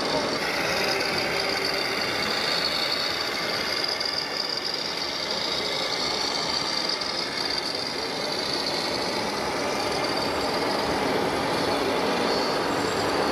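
Simulated diesel truck engine from a radio-controlled scale truck's sound module, running steadily over a constant background din.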